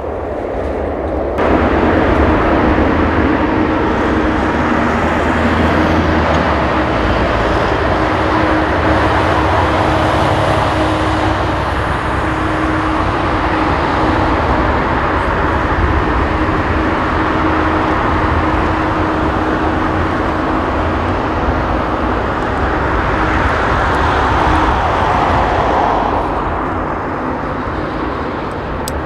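Jet engines of a Boeing 787-9 airliner taxiing past at low power: a steady, loud rushing noise with a faint low hum. It swells for a few seconds near the end as the aircraft passes closest, then eases.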